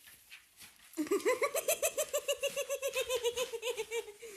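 A person laughing in a long, high-pitched giggle of rapid pulses, about nine a second, starting about a second in and tailing off near the end.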